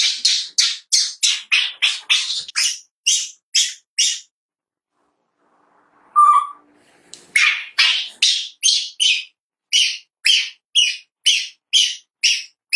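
Baby monkey crying in short, shrill squeals, about three a second, in two long runs broken by a pause of a couple of seconds in the middle.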